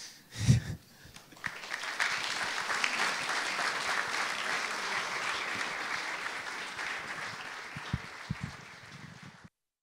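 Audience applause that starts about a second and a half in, holds steady, then thins out and cuts off just before the end. A short, loud, low thump comes about half a second in, before the clapping.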